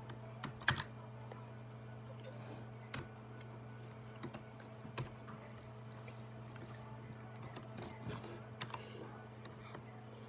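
Scattered light clicks and taps at an irregular pace, the loudest less than a second in, over a steady low hum.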